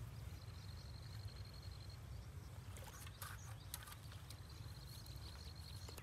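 A hoe chopping and scraping into a wet, grassy pond bank: a few short strikes about three seconds in. Under them runs a low steady rumble, and a high thin trill comes and goes twice.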